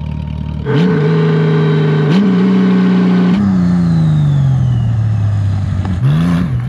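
Honda Gold Wing motorcycle engine pulling hard past on the highway, its pitch rising twice through the gears and then falling steadily as it goes by and slows. A short rev comes near the end.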